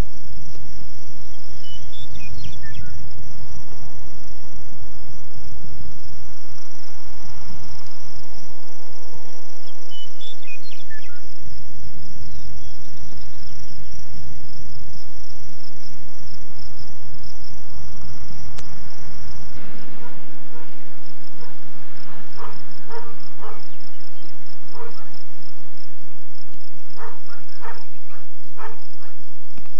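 Insects trilling in a steady high-pitched drone, which turns into a pulsing chirr about two-thirds of the way through. A low rumble runs underneath and drops away at the same point.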